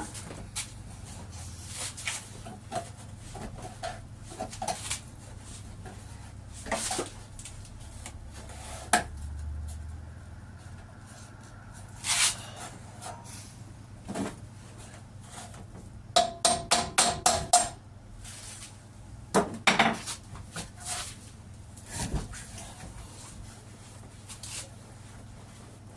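Hammer blows on the sheet-steel door flange of a 1939 Hillman Minx held in a vice: scattered single knocks, then a quick run of about eight ringing strikes about two-thirds of the way through.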